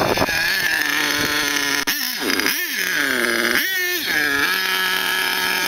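HPI Grave Digger RC monster truck's .27 big-block nitro engine running at a high buzz, revving up and back down twice, then holding a steady note near the end.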